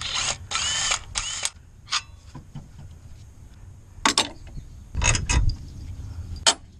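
Cordless power tool spinning out motor mount bolts in three short bursts in the first second and a half, followed by a few sharp clicks and knocks.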